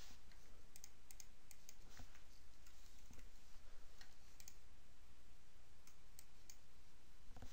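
Quiet, scattered keystrokes on a computer keyboard and mouse clicks, a few at a time with pauses between, over a faint low hum.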